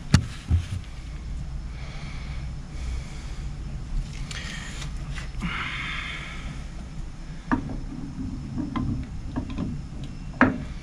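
Light metallic clicks and knocks of a PRM260 marine gearbox's hydraulic pump body being handled and offered back onto the gearbox casing, a sharp one right at the start and others scattered through. A short breathy sniff comes about halfway through.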